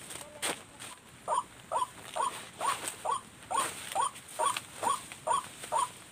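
White-breasted waterhen calls played through a speaker as a trapping lure: a run of short, bending call notes about twice a second, starting about a second in after a few clicks.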